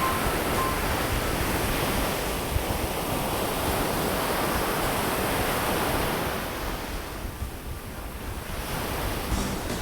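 Ocean surf washing onto the beach, with wind rumbling on the microphone; the wash eases for a moment about seven seconds in.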